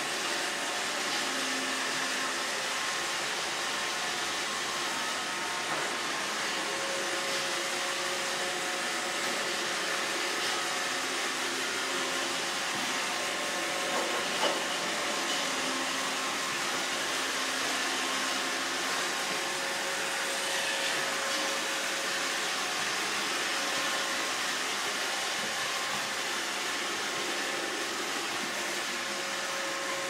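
iRobot Roomba 650 robot vacuum running steadily on a hard tile floor: an even whirring hiss from its suction fan and brushes, with faint motor tones that come and go. One short knock about halfway through.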